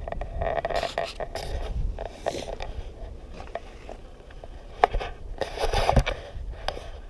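Hands handling gear: irregular rustling and scraping with scattered sharp clicks, in two busy stretches about a second in and around six seconds in, with a loud click just before the second stretch.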